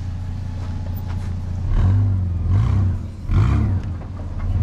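A four-wheel-drive's engine runs low and steady, then is revved hard in four surges from about two seconds in, each rising and falling in pitch, as the vehicle is driven over a rutted off-road track.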